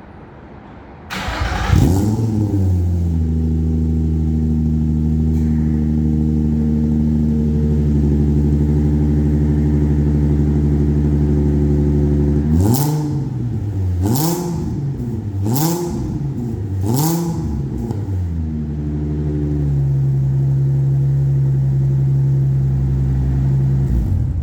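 Nissan 350Z's 3.5-litre V6 starting through a new straight-through Flashark cat-back exhaust with the silencer insert removed. It catches about a second in and flares, then settles into a steady idle. Past the halfway mark it is revved four times in quick succession, each rev rising and falling, and then it drops back to idle.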